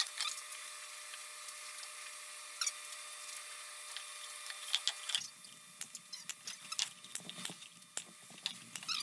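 Plywood box pieces being handled and set down on a workbench, giving scattered sharp knocks and clicks over a faint steady hiss, with a low hum coming in about halfway through.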